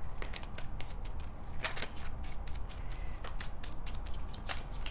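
An oracle card deck being shuffled by hand: a run of irregular crisp clicks and snaps of the cards.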